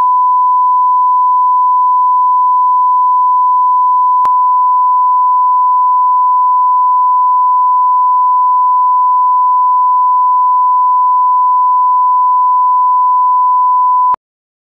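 Steady 1 kHz sine test tone, the line-up tone that runs with colour bars. A faint click comes about four seconds in, and the tone cuts off suddenly shortly before the end.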